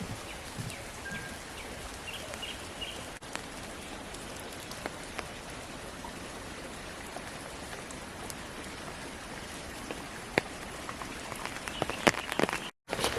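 Steady hiss of rain and dripping water in wet forest, with scattered ticks of drops and a few soft footfalls on the soaked track. Sharper clicks come near the end, just before the sound cuts out for a moment.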